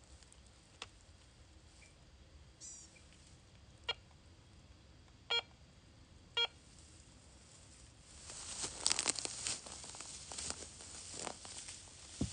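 A few short bird chirps, about a second apart, after a brief falling trill. Then, from about eight seconds in, dry grass and leaves rustle and crackle, growing louder.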